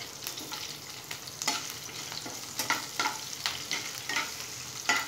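Chopped green chillies sizzling in hot oil in a kadhai with mustard and cumin seeds and curry leaves, while a flat spatula stirs them, scraping against the pan in repeated strokes about every half second.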